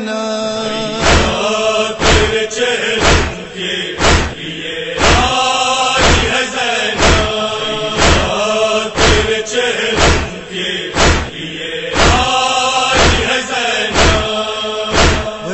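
Male voices chanting a noha, a Shia lament in Urdu, over a steady beat of sharp strikes about twice a second, the rhythm of matam.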